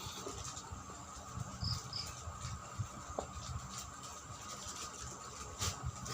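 Close-up eating sounds: irregular chewing and mouth smacks with small clicks from someone eating ripe mango and rice by hand. A short high double chirp sounds about 1.7 s in, over a faint steady high tone.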